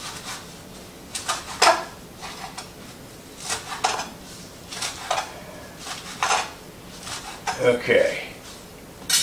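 Kitchen knife dicing kale: about a dozen uneven chops, the blade knocking down roughly once a second or a little faster.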